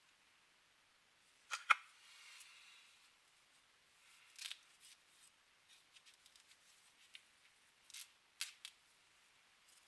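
Handling noises: a few sharp clicks and brief rustles, with a short scraping about two seconds in; no motor is running.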